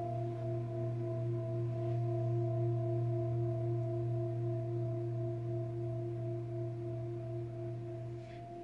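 Hand-held antique Tibetan singing bowl ringing on after a mallet strike, several steady tones with a slight waver, slowly fading. The deepest tone stops abruptly near the end while the higher tones keep sounding.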